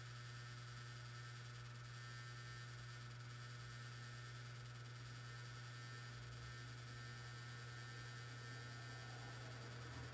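External hard disk drive running with a steady low hum and a fainter steady high tone above it: the abnormal noise of the drive, which its owner calls really loud.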